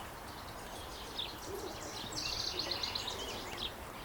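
A small songbird singing a rapid trill of high chirps, starting about two seconds in and lasting about a second and a half, over steady outdoor background noise.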